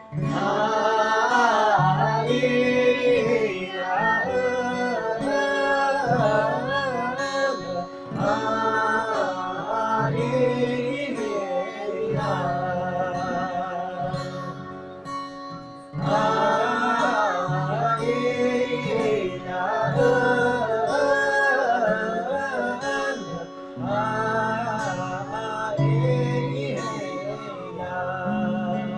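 A voice singing a slow melody with vibrato over plucked acoustic guitar; the song pauses briefly about halfway through and a new verse begins.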